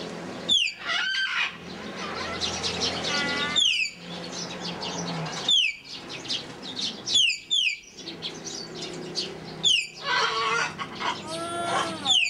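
A pet talking bird calling: sharp, high whistles that slide steeply downward, repeated about eight times at uneven intervals, with a burst of wavering, warbling calls near the end.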